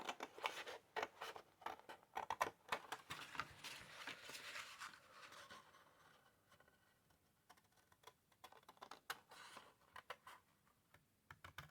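Faint snipping of scissors cutting through cardstock, with small clicks and rustles of the card being handled; the ticks come thick and fast for about six seconds, then thin out to scattered clicks.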